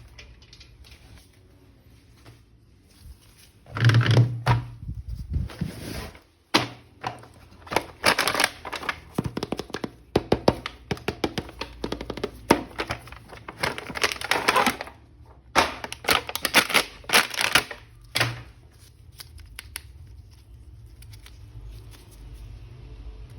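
A plastic action figure being unboxed by hand: crinkling plastic packaging with clicks and taps of hard plastic parts, coming in irregular bursts and busiest in the middle.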